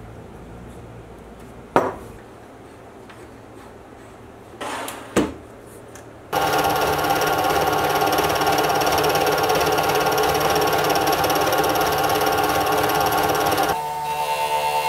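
Two sharp metallic clicks as steel boring-head parts are handled. Then, about six seconds in, a metal lathe starts suddenly and runs steadily turning a steel part, a loud whine with several steady tones; near the end a different, higher steady tone takes over.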